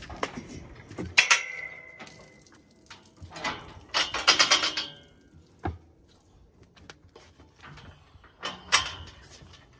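Steel cattle chute clanging and rattling as a Longhorn heifer is worked in it: a loud metal bang about a second in that rings on briefly, a run of rattling clanks around the middle, and another bang near the end.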